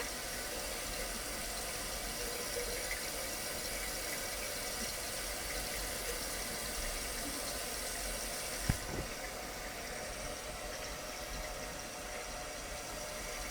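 Water running steadily into a toilet tank as it refills, with a single sharp knock about nine seconds in.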